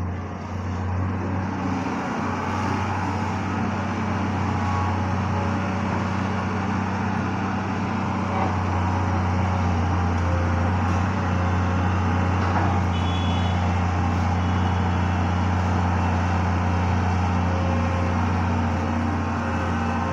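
Kobelco long-reach excavator's diesel engine running steadily, a constant low drone, while the machine swings its boom and works its bucket.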